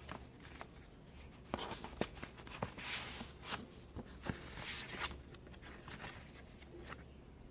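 Paper being handled: rustling and sliding with scattered light clicks and taps, and two longer swishes about three and five seconds in.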